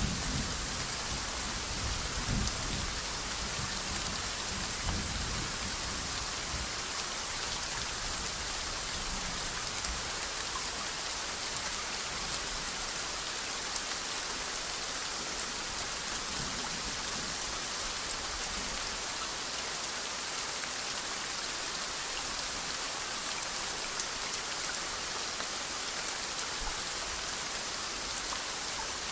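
Steady rain falling in an Amazon Basin downpour, an even hiss of drops, with a low rumble of distant thunder dying away over the first several seconds.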